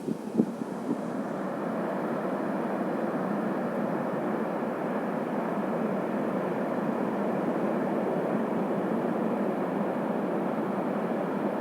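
Steady roar of surf breaking on a sandy beach, swelling in the first second or two and then holding even.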